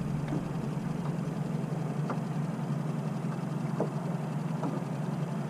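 Boat's outboard motor idling at low speed, a steady low hum, with a few faint ticks over it.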